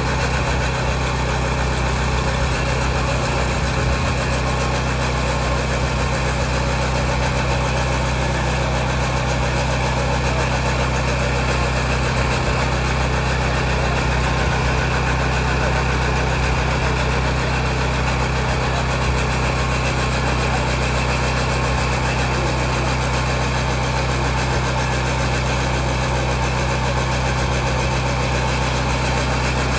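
Portable rail grinder's small petrol engine running steadily while its grinding wheel works the rail head, a steady engine hum under an even grinding hiss.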